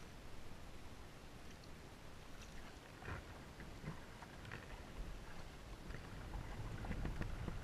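Kayak paddling: a double-bladed paddle dipping into the water on alternate sides. Faint, irregular splashes and drips, mostly in the second half.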